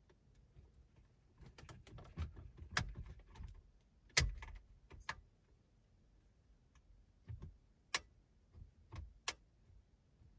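Cables and plastic wiring connectors being handled behind a car's dashboard: several sharp clicks and light knocks at irregular intervals, the loudest about four seconds in.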